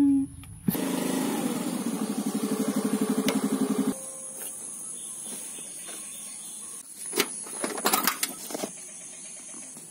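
Honda Activa scooter engine running with a fast pulsing beat, then cutting off abruptly about four seconds in. Near the end come a few sharp clicks and jingles of the key in the ignition.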